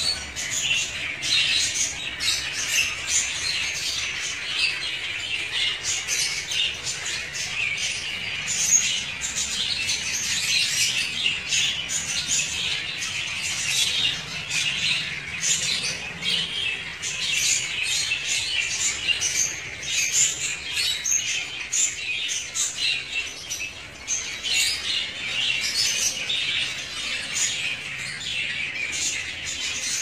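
Many African lovebirds chattering and squawking at once: a dense, unbroken din of shrill, high-pitched chirps and squawks.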